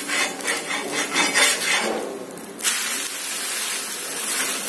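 Metal spatula scraping under a wheat dosa on a hot iron tawa in a run of short strokes, then, about two and a half seconds in, a steady sizzle as the flipped dosa fries on the pan.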